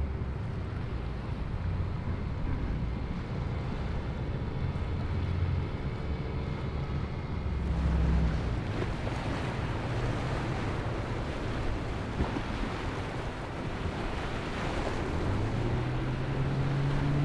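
Boat engines running with the wash and splash of waves in an inlet. Partway through, the water noise becomes louder and brighter. Near the end, one boat engine's note rises as it speeds up.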